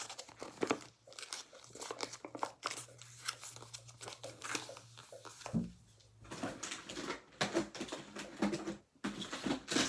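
A slime toy being handled: irregular crinkling and small crackling clicks, with a dull knock about halfway through.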